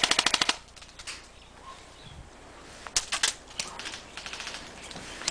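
Airsoft rifle firing a rapid full-auto burst of BBs that stops about half a second in, followed around three seconds in by a short burst of a few more shots.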